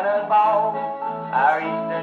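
A 1936 country string-band 78 rpm record playing through the horn of a 1928 Orthophonic Victrola 8-35 acoustic phonograph: sliding melody notes over a strummed backing, with no deep bass and nothing above the upper midrange.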